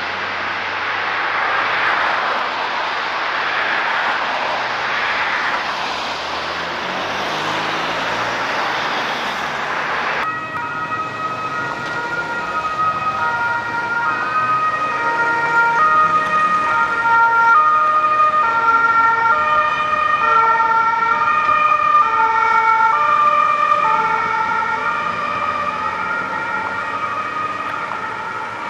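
Road traffic noise, then from about ten seconds in a Mercedes Sprinter ambulance's siren sounding in stepped, alternating high and low tones. The siren grows louder toward the middle and fades slightly near the end as the ambulance passes on its emergency run.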